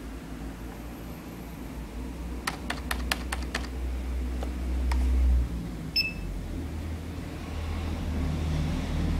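A quick run of about six clicks, then about six seconds in a single short high beep from the USB barcode scanner, the good-read signal as the scanned code is entered into the tablet. A low rumble underneath swells until about five seconds in, then drops.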